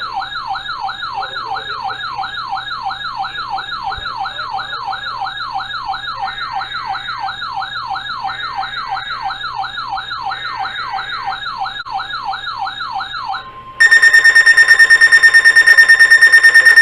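Electronic siren warbling rapidly up and down, about two and a half sweeps a second. About 14 seconds in, a much louder steady Emergency Alert System alert tone cuts in.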